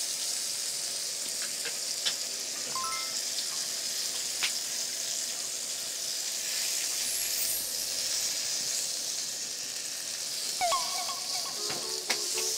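Beef slices rolled around vegetables sizzling steadily in a grill pan on a portable gas stove, with a few sharp clicks of utensils.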